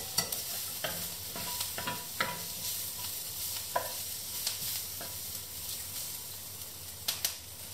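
Chopped asparagus sizzling in butter in a frying pan while it is stirred with a spatula, with scattered light knocks and scrapes of the spatula against the pan.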